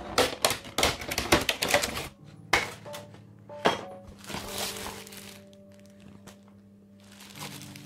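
Plastic wrap and cardboard packaging of a Swiffer mop kit crackling and rustling as it is handled. A dense run of crackles lasts about two seconds, then come two sharp knocks and a brief rustle, and it grows quieter near the end.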